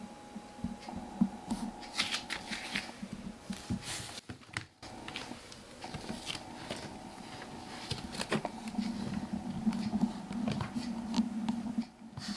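Soft rustling and scattered small clicks of handling against bedding, over a faint steady hum.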